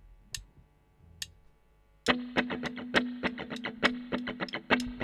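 A drummer's count-in, drumsticks clicked together twice just under a second apart, then about two seconds in the rock band comes in: drums striking in a fast, even beat over a sustained guitar and bass chord.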